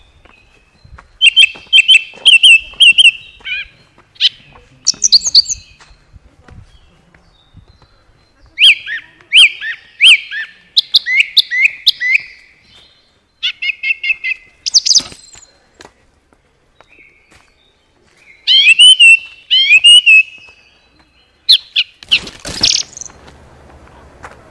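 A songbird singing close by in short, loud phrases of quick chirps and sweeping notes, about six phrases separated by pauses. Near the end the song gives way to a steady faint hiss.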